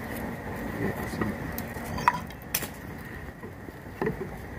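A few sharp clicks and light metallic clinks from handling a steel tape measure against a wooden batten, the loudest click about two and a half seconds in.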